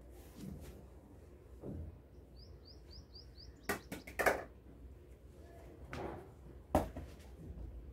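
A small bird gives a quick run of about six short, high chirps, each falling in pitch, a few seconds in. Several sharp knocks or taps follow, the loudest sounds here, one more near the end, over a low room hum.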